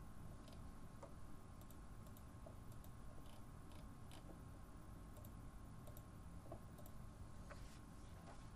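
Near silence with a dozen or so faint, irregularly spaced clicks of a computer mouse.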